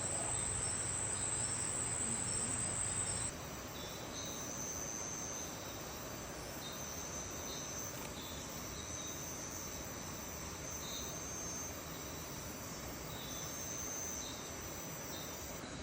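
Insects calling steadily, with a loud high continuous drone that cuts off suddenly about three seconds in. After that comes a softer high whine, with short chirps repeating roughly once a second.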